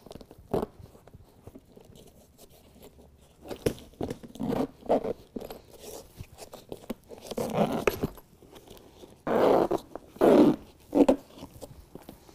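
Zippers joining the panels of a truck bed liner pulled closed in several short runs, mixed with the rustle of the heavy mats shifting; the two loudest pulls come close together past the middle.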